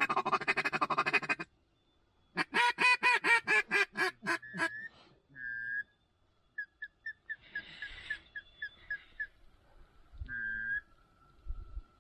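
Mallard quacking: a loud run of about ten quacks that fade one after another, like a hen's descending call. Scattered single quacks and a quick string of short peeps follow.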